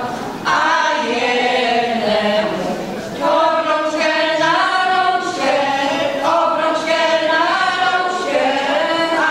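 Women's folk choir singing unaccompanied in several voices, in sustained phrases with short breaks between them just after the start and about three seconds in.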